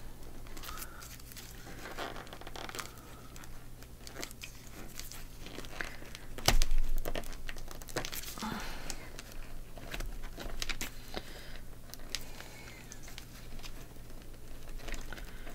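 Paper pages rustling and crinkling as they are worked onto the metal wire-binding loops of a journal spine, with many small scattered clicks and one louder knock about six and a half seconds in.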